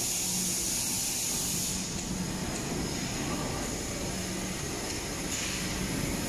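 Steady background noise of a large factory hall: a faint low machine hum under an even hiss, the hiss easing slightly about two seconds in.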